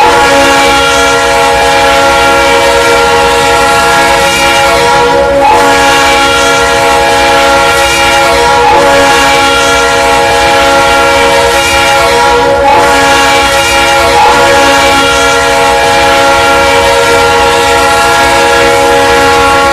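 BNSF GP60 diesel locomotive's air horn sounding a long, loud, steady multi-note chord. The chord wavers briefly a few times without stopping.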